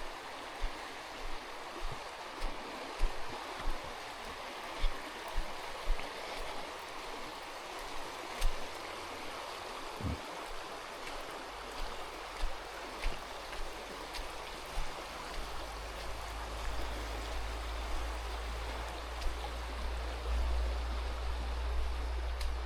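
Mountain river rushing steadily. Regular thudding footsteps, about one and a half a second, run through the first part. A low rumble comes in and grows in the second half.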